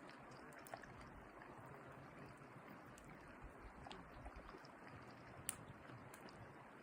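Near silence: a faint, even outdoor hiss with a few small clicks, the clearest about five and a half seconds in.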